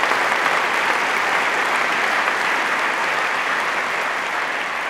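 Audience applauding, a steady clapping that dies away near the end.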